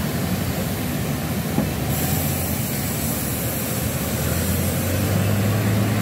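Hyundai forklift engine running steadily as the forklift drives off carrying a large grain bin, its low hum growing stronger near the end. A high hiss starts suddenly about two seconds in.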